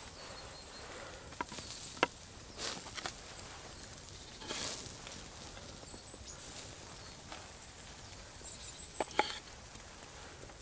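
A Mora Companion knife slicing cherry tomatoes on a small wooden cutting board: a few sharp taps of the blade against the board, spaced a second or more apart, over quiet forest ambience.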